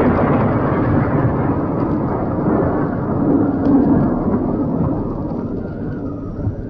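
Volcanic eruption sound effect from a 1970s children's story record: a loud, dense, deep rumbling that slowly fades over the last few seconds.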